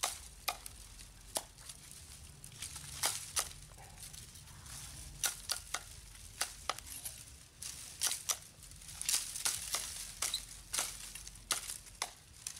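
Wood campfire crackling, with irregular sharp snaps and pops over a low steady rumble.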